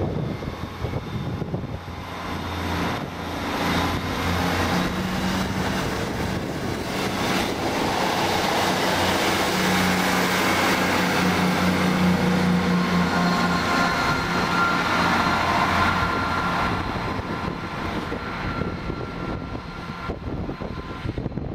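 Class 158 diesel multiple unit pulling out and passing close by, its diesel engine giving a steady hum with rail and wheel noise. It is loudest about halfway through as it goes by, then fades as it moves off down the line.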